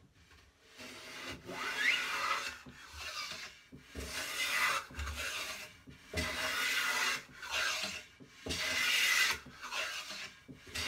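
Stanley No. 8 jointer plane, a Type 10, pushed along the edge of a board in a series of cutting strokes, each roughly a second long with short gaps between, its freshly sharpened iron taking shavings.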